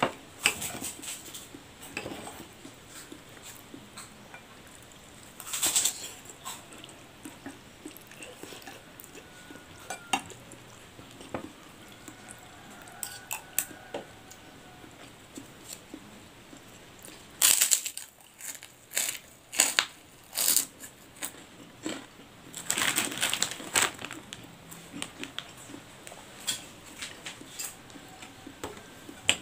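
Metal spoon and fork clinking and scraping on ceramic plates while a man eats noodles and rice, in scattered clicks with a few busier clusters of clatter and short noisy mouth sounds of eating.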